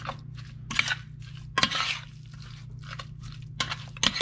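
Metal spoon stirring raw pork spare ribs coated in a thick herb paste in a stainless steel pot: wet, crunchy squelching and scraping in a few separate strokes.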